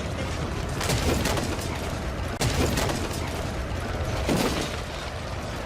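Layered medieval battle sound effect: a continuous din of noise packed with sharp cracks and impacts, clustered about a second in, around two and a half seconds and again near four seconds.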